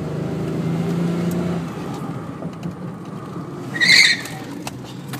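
Car engine running with a steady hum and road noise, heard from inside the car, with a short, loud tire squeal about four seconds in.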